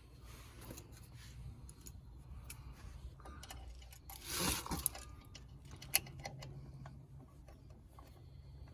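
Scattered light metallic clicks and clinks of drum-brake hardware and hand tools being worked as the shoe springs are fitted, with a louder scraping rustle about four seconds in and a sharp click about six seconds in, over a steady low hum.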